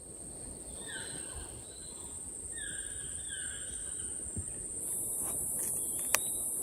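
Insects buzzing in a steady high drone, with a bird giving several short calls in the first few seconds. About five seconds in, a louder high insect hiss joins, and there is one sharp click near the end.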